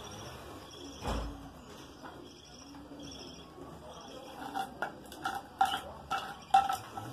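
A dull thump about a second in, then a quick run of sharp metallic clicks and clinks in the second half, as budgerigars move about on their wire cage.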